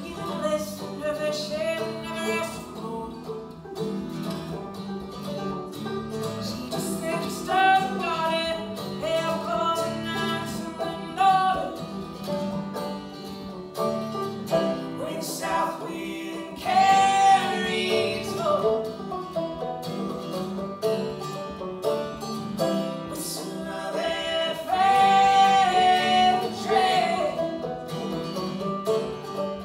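Live acoustic folk music: a banjo and an acoustic guitar played together with singing, the voice growing louder about seventeen and twenty-five seconds in.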